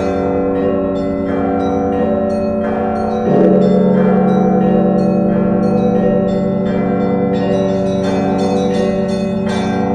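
Russian Orthodox church bells ringing a festive peal from a cathedral bell tower: small bells chime in a quick repeating pattern over the sustained ringing of the middle bells. A little over three seconds in, a large low bell is struck and its deep hum carries on beneath the rest.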